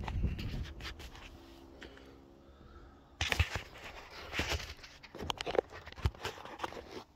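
Hard plastic knocks and rattles of an infant car seat being handled and adjusted on its Isofix base, in several short bursts from about three seconds in.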